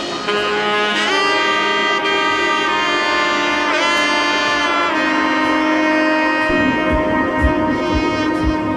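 Background music: a lead instrument plays long held notes with pitch slides, and a low, regular beat comes in past the middle.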